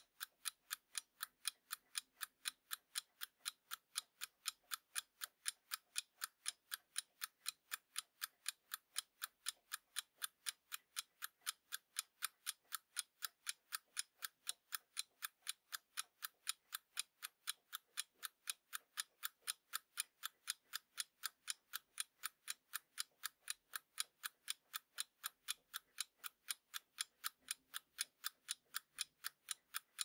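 Alarm clock ticking: a faint, even run of sharp ticks, about three a second.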